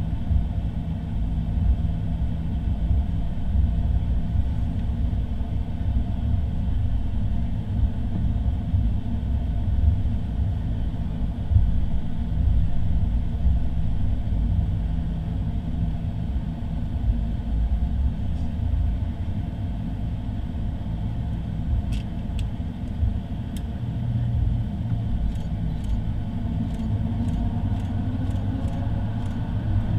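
Airbus A350's Rolls-Royce Trent XWB engines at taxi power, heard from inside the cabin as a steady low rumble with a faint hum. Near the end a rising whine starts as the engines begin to spool up. A few faint ticks sound in the last seconds.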